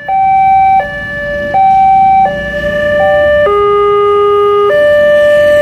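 Electronic railway level-crossing alarm sounding its two-tone warning that a train is approaching, one steady pitch alternating with another. About three and a half seconds in, a second crossing's alarm takes over: a lower pair of tones, each held about 1.2 s, against a first pair that changed about every three-quarters of a second.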